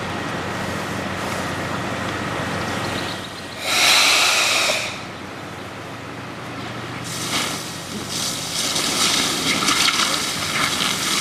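Fire hose spraying water onto a burning riding lawnmower: a loud burst of hissing spray about four seconds in, then from about seven seconds a sustained rough, crackling hiss as the water hits the fire. A steady low engine hum runs underneath.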